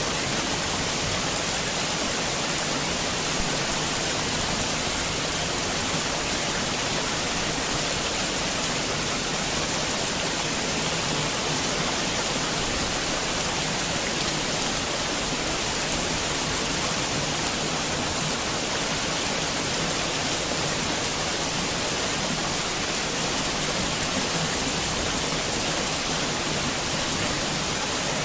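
Heavy rain falling steadily, a dense even hiss of countless drops with no thunder.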